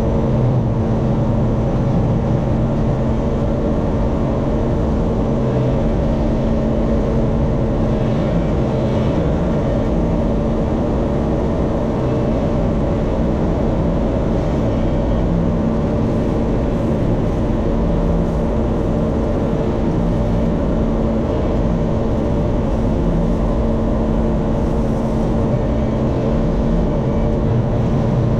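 LS MT357 tractor's diesel engine running steadily at a constant speed with a low, even hum.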